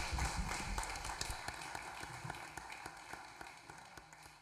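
Audience and panelists applauding, the clapping growing steadily fainter.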